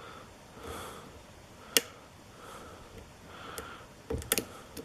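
A lock pick working inside a pin-tumbler lock cylinder, giving a few sharp, light metallic clicks as it slides off the pins and warding, with a quick cluster of clicks and a soft knock near the end. Soft breathing through the nose comes in between.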